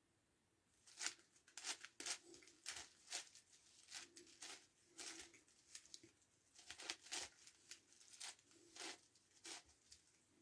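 Faint scratchy clicks of a plastic 9x9x9 Rubik's Cube as its layers are turned, an uneven run of one or two turns a second starting about a second in.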